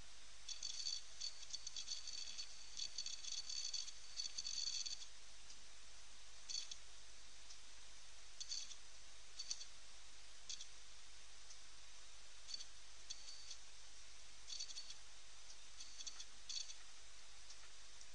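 Faint high-pitched crackling clicks, in quick irregular runs for the first five seconds and then as scattered single bursts, over a steady hiss and a faint hum.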